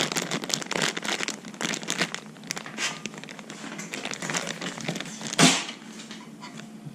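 Plastic packaging crinkling and rustling as it is handled and opened, in a dense run of irregular crackles, with one louder burst about five and a half seconds in.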